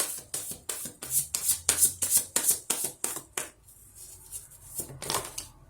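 A hand rattle shaken in a quick, even rhythm, about three to four shakes a second for a few seconds, then one last shake near the end.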